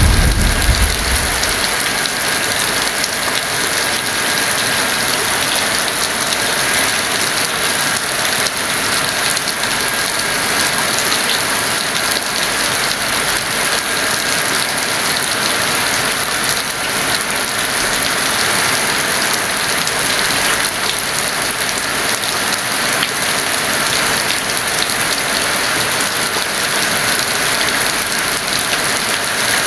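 Heavy rain falling in a steady, dense hiss. The low rumble of a thunder roll dies away in the first second or two.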